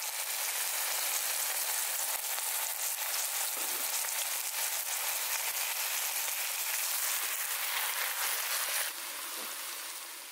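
Oil sizzling steadily with fine crackling in a cast-iron pot; the sizzle drops quieter about nine seconds in.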